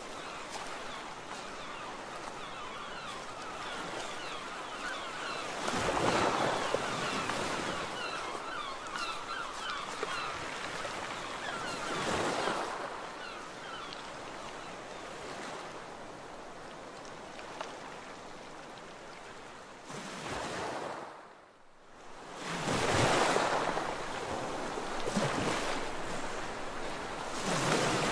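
Sea waves breaking and washing up a beach, a steady surf rush that swells with a louder wave every few seconds and briefly drops away shortly before the last two.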